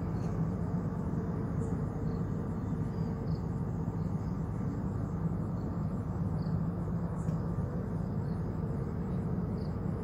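Steady low drone of running machinery, with faint, sparse chirping of insects.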